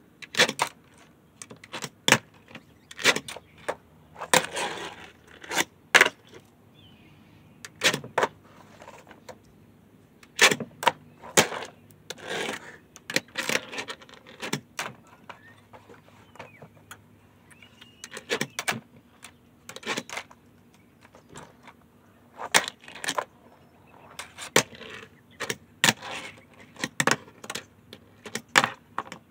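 Tech Deck fingerboard doing tricks on a tabletop: irregular sharp clacks as the little board is popped and lands, with short rolls of its small wheels between.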